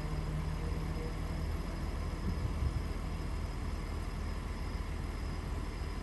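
Parked police SUV idling: a steady low engine rumble.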